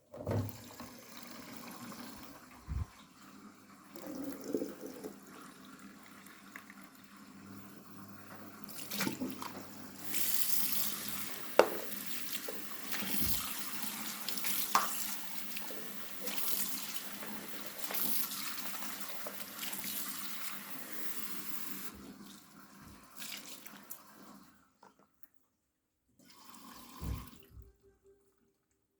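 Daewoo DWD-FT1013 washing machine taking in water: a steady rush of water running into the drum, louder in the middle stretch, which cuts off a few seconds before the end, followed by a couple of soft knocks.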